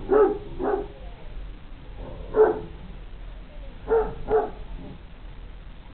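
A large sighthound barking in play, with five short single barks: two near the start, one in the middle and two close together near the end.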